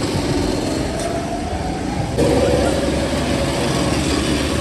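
Small go-kart engines running on a track, a steady engine drone; about two seconds in the sound jumps abruptly to a louder engine note.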